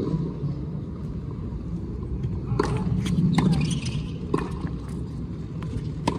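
Tennis ball struck by rackets and bouncing on a hard court during a doubles rally: several sharp pops spread over the second half, the last as a forehand is hit, over a steady low background rumble.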